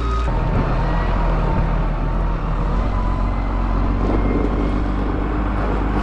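Tractor engine running steadily, its note changing a fraction of a second in and again near three seconds.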